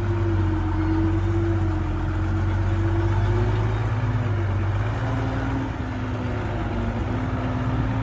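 Heavy construction vehicle's diesel engine running steadily, with a fainter whine above the low hum that steps down in pitch about halfway through.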